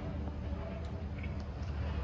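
Diesel engine of a Volvo A25G articulated hauler idling, a steady low rumble.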